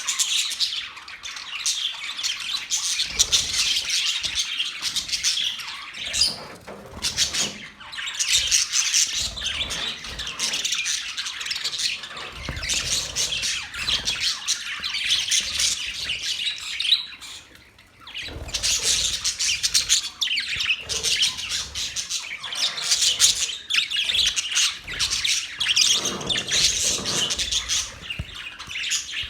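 Pet parrots chirping and squawking in a dense, near-continuous chatter of high calls, with a short lull just past the middle.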